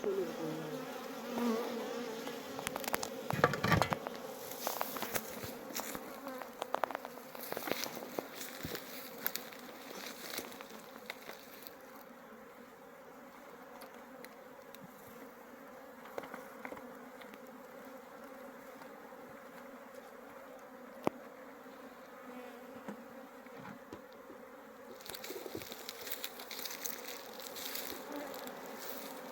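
Honeybees buzzing in a steady hum, with scattered sharp clicks and ticks through the first ten seconds or so and again near the end.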